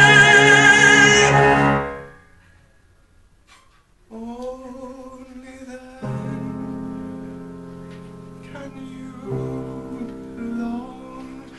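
A male singer holds the last note of a phrase with vibrato over the accompaniment, and it ends about two seconds in. After a short pause, the instrumental accompaniment comes back with held chords that change about every two to three seconds.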